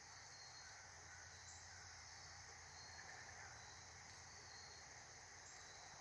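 Faint, steady, high-pitched chorus of insects such as crickets or katydids, unbroken throughout.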